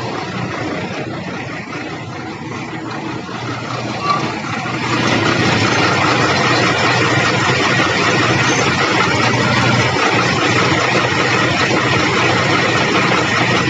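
Ashok Leyland 1616 truck's diesel engine idling steadily, getting louder about five seconds in and then holding level.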